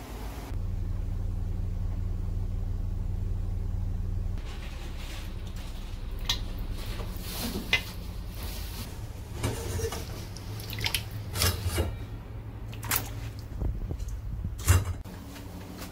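A steady low hum for the first few seconds, then scattered knocks and clatters of pig trotter pieces being handled in a metal wok, the loudest a sharp knock near the end.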